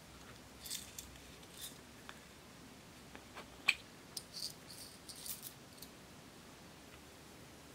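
Faint, scattered light clicks and rustles of small plastic glitter jars being handled, with sequins dropped into a plastic tray; the sharpest click comes about three and a half seconds in.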